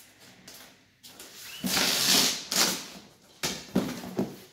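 Corrugated cardboard box being ripped open along its perforated tear strip: one long tearing rip starting about a second in and lasting about two seconds, then a few shorter rips near the end as the flap is pulled back.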